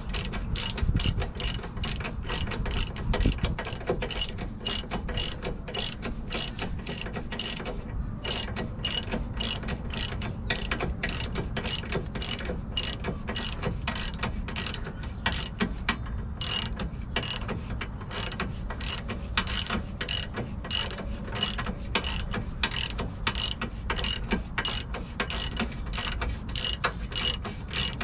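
Hand socket ratchet clicking steadily, about two clicks a second, as it tightens the lower mounting bolt of a rear shock absorber. It pauses briefly twice.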